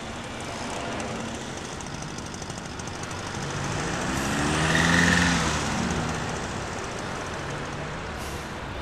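Motorcycle engines pulling away from a traffic light over steady street-traffic noise. The engine sound swells to a peak about halfway through, then drops in pitch and fades as the bikes ride off.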